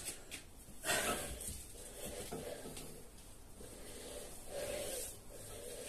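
Heavy breathing, with short, sharp exhales about a second in and again near the end.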